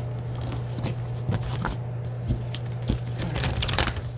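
A deck of tarot cards being shuffled by hand: a run of soft card clicks and slaps, busiest a little before the end, over a steady low hum.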